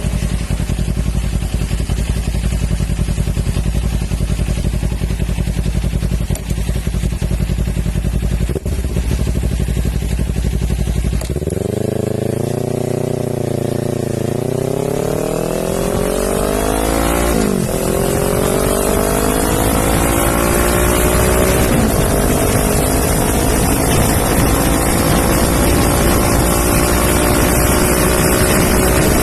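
Kawasaki Ninja 400's parallel-twin engine through an Akrapovič exhaust, idling steadily for the first ten seconds or so, then accelerating away. Its pitch climbs, drops sharply at a gear change, and climbs again slowly through the higher gears.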